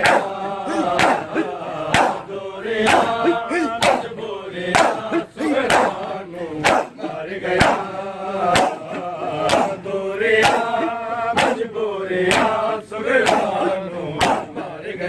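A crowd of men beating their chests in unison (matam), one sharp slap about once a second, while men's voices chant a noha lament over the beat.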